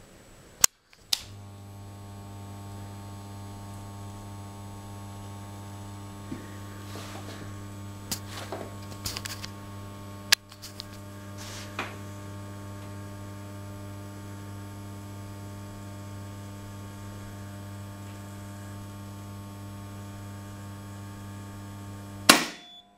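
RET-3000 current injection set's loading transformer humming steadily with a mains buzz as it drives test current through an A3144 600 A circuit breaker, after a couple of clicks about a second in. Near the end the breaker trips with a sharp snap and the hum cuts off, a sign that its new overcurrent release works.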